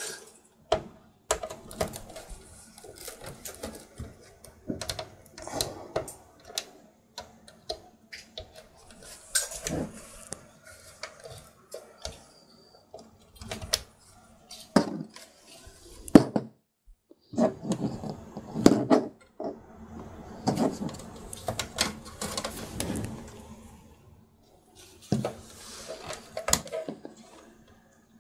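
Hands handling a computer case and power-supply cables: irregular plastic and metal clicks, taps and rustling as connectors and cables are moved and plugged in.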